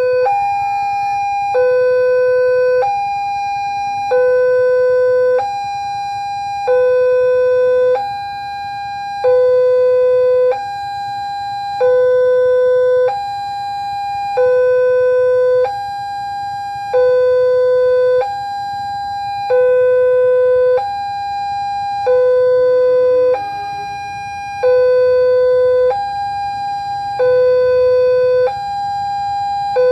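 Electronic warning siren of a railway level crossing, alternating steadily between a higher and a lower tone, each held a little over a second: about one high-low cycle every two and a half seconds.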